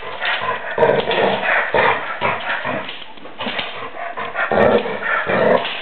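A chocolate Labrador and a Chihuahua play-fighting, with a string of dog barks and yips, loudest about a second in and again near the end.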